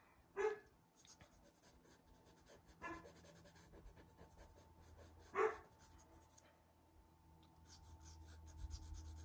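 Pastel pencil scratching on Pastelmat sanded pastel paper in quick, short strokes. Three brief, louder sounds come about half a second, three and five and a half seconds in, the last the loudest.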